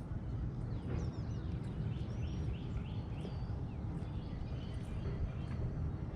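A bird calling a quick run of short sliding chirps, starting about a second in and ending a few seconds later, over a steady low rumble of outdoor noise.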